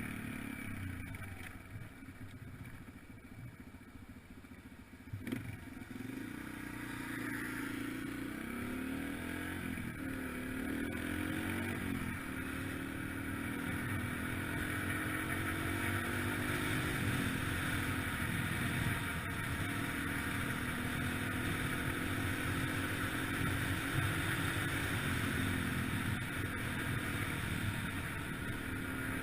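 2003 Yamaha TT-R125LE dirt bike's single-cylinder four-stroke engine, running low for about the first six seconds, then revving up with a rising pitch and running on with its pitch rising and falling as the throttle changes. A steady rushing hiss lies under it.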